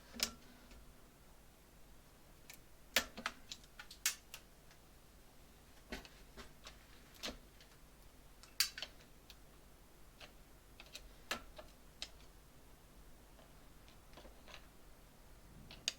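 Scattered small clicks and taps of hand tools against the parts of a tractor's starter safety switch, at irregular intervals, as the switch is taken apart.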